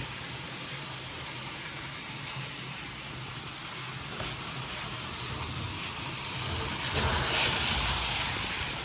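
Electric model train running along the track, its motor humming steadily with wheels rolling on the rails. It grows louder about seven seconds in, then eases off.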